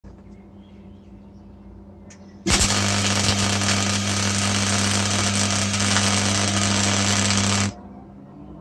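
A MIG welder striking an arc and running a bead with argon-CO2 shielding gas. A steady crackling hiss over the welder's electrical hum starts suddenly about two and a half seconds in and cuts off about a second before the end.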